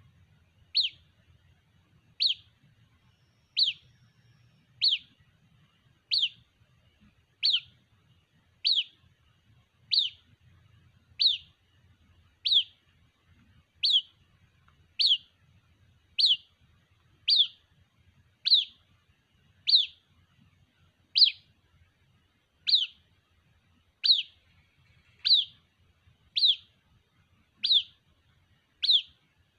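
White-breasted waterhen chick calling for its parent: a single short, high, falling peep repeated at an even pace, about once every 1.3 seconds.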